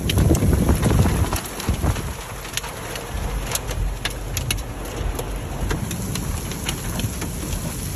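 Hailstones pelting a car, many irregular sharp ticks on the body and glass, over a low rumble that is louder for the first two seconds and then settles.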